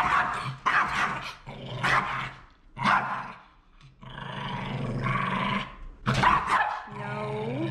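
Small muzzled shaggy dog barking and growling in fear as it is brushed: a run of sharp barks in the first three seconds, a long growl about halfway, then more barks and a rising growl near the end.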